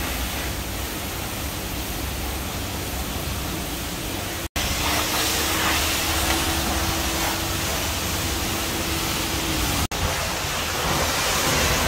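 High-pressure water spraying from a self-service car wash lance onto a car: a steady hiss of spray, cut off abruptly twice, about four and a half and ten seconds in.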